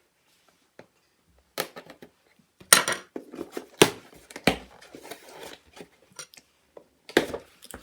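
Plastic parts of a new 2-in-1 juicer-blender being handled and fitted: a handful of sharp clicks and knocks at irregular intervals, with light rustling between them.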